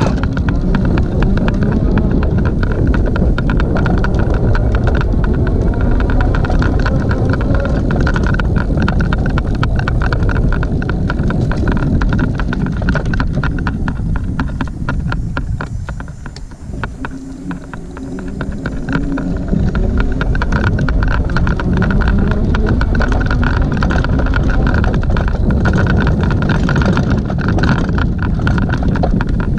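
Detroit Electric Rebel Wagon fat-tyre electric cargo bike riding over bumpy lawn: a steady rumble full of small rattling knocks, with a constant whine running above it. It quiets for a couple of seconds about halfway through as the bike eases off, then picks up again.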